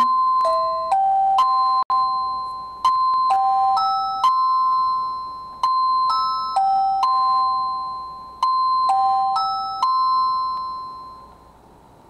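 Secrui wireless doorbell receiver playing the chime tune for the back-door sensor: a long electronic melody of bell-like notes, each struck and dying away, fading out near the end.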